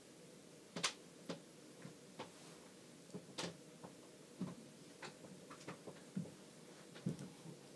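Light, sharp clicks and taps at uneven intervals, about fifteen of them, over quiet room tone: small handling noises close to the microphone.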